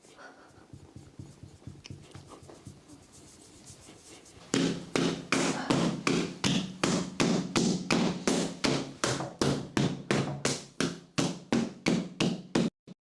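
Rhythmic percussive blows on a patient's body during chiropractic treatment, about three a second, starting about four and a half seconds in and stopping just before the end. Fainter tapping and rubbing come before them.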